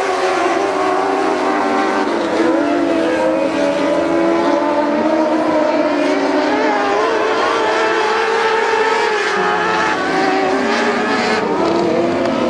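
A pack of motorcycle-engined dwarf race cars running laps together, their overlapping engine notes rising and falling in pitch as they accelerate down the straights and lift for the turns.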